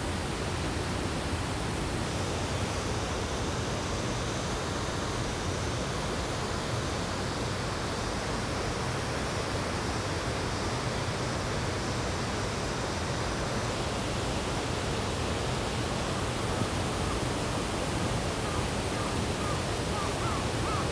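Steady rushing of a mountain stream. A thin high-pitched buzz runs through the middle, and faint short chirps come near the end.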